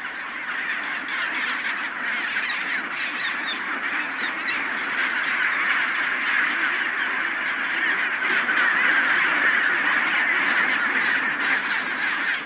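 Dense chorus of a chinstrap penguin colony: many birds braying and squawking over one another, with no single call standing out, swelling a little louder in the second half.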